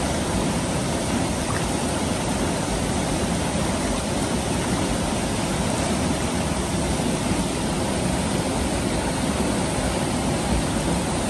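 Shallow river running fast over a rocky bed: a steady, even rush of flowing water.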